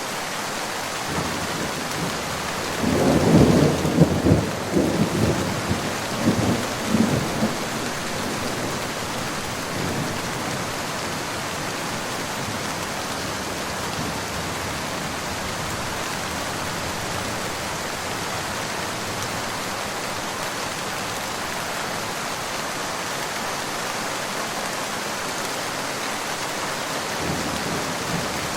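Steady heavy rain, with a roll of thunder that rumbles in about three seconds in, rolls in several surges and dies away by about eight seconds; another roll begins at the very end.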